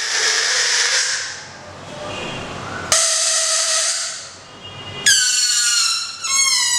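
Air blown through a balloon's stretched rubber neck pinched between the fingers, the vibrating membrane making a hissing, reedy squeal. It starts breathy, then pitched squeals cut in suddenly about three and five seconds in, their pitch sliding down as the neck is stretched and relaxed.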